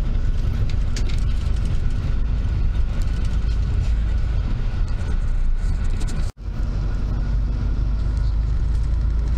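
Steady low rumble of a moving bus's engine and road noise heard inside the cabin. It cuts out for a split second about six seconds in.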